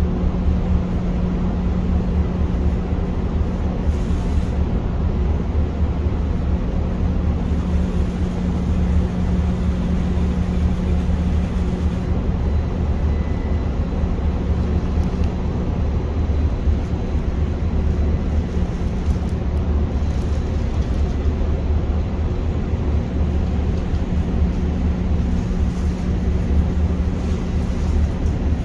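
Steady, loud drone of heavy industrial machinery: a constant low hum at one unchanging pitch over a rumbling noise.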